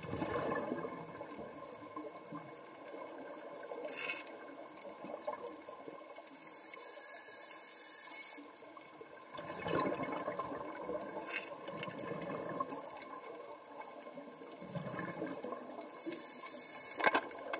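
Water sound heard underwater: a steady hiss with rushes of bubbling water that swell and fade every few seconds, the strongest about a second in and near the middle, and a few sharp clicks.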